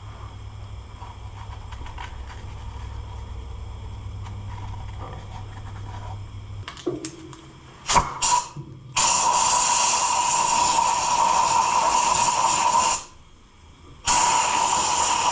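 Aerosol can of WD-40 spraying into the engine's cylinders: two long steady hisses, the second starting about a second after the first stops, to loosen rust in a seized engine. Before them there is a low steady hum and a few sharp clicks.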